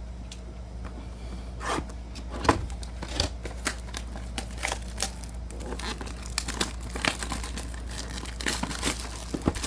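Shrink-wrap being torn off a box of trading cards and crumpled: irregular crackling, crinkling and tearing throughout.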